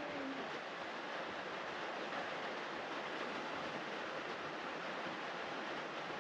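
Steady, even background hiss with no distinct knocks or clicks.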